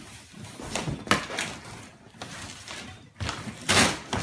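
Cardboard box flaps and plastic-wrapped bicycle rims rustling and scraping in a series of separate strokes as the rims are lifted out of the box, loudest near the end.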